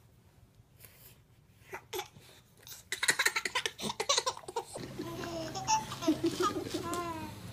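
A baby laughing and babbling in short bursts, starting about three seconds in.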